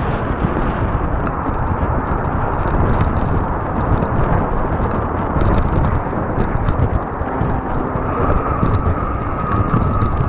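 Riding noise from a fat-tire e-bike on a paved trail: wind rushing over the camera microphone and the tyres running on the asphalt, with scattered small clicks. A steady high whine joins about eight seconds in.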